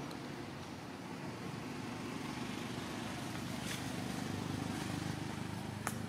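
Steady low rumble of a motor vehicle engine or road traffic, growing a little louder through the middle, with two short sharp clicks, one past the middle and one near the end.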